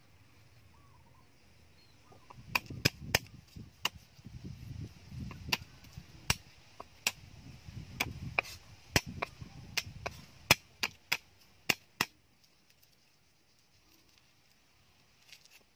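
A cleaver striking a thick wooden chopping block while working garlic cloves: about twenty sharp, irregular knocks with duller thuds between them, stopping about twelve seconds in, followed by faint handling.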